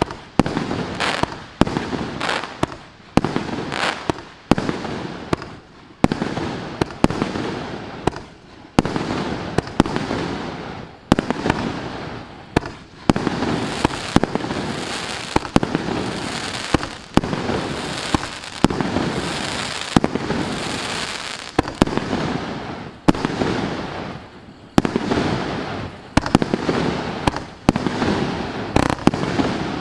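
Maxsem MC175-36 fireworks cake, a 36-shot battery of 42 mm tubes, firing shot after shot at about one a second, sometimes two in quick succession. Each shot is a sharp bang that trails off before the next.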